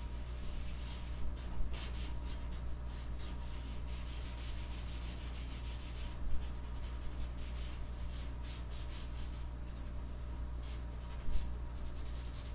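A marker being drawn across a printed photo: a run of short scratchy strokes with a pause here and there, over a steady low hum.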